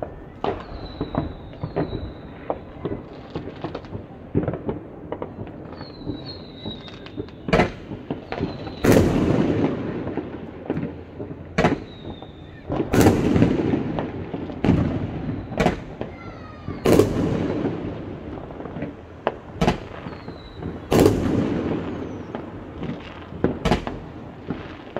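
Fireworks going off across a town: sharp bangs of exploding shells, each followed by a rumbling echo, among smaller crackling pops. A few short whistles fall in pitch early on, and the bangs become louder and more frequent from about seven seconds in.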